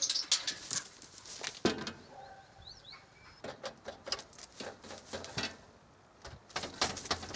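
Tame raven tapping its beak against a window, in quick clusters of sharp knocks with pauses between: it is asking to be let in.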